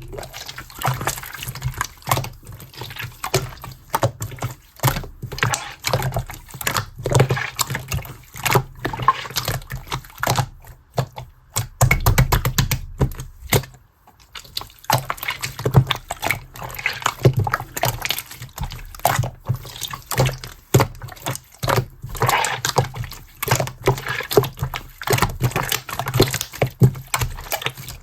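Clear slime being squished and pressed by hand: an irregular run of wet clicks, pops and squelches, with a quick dense flurry of clicks about twelve seconds in.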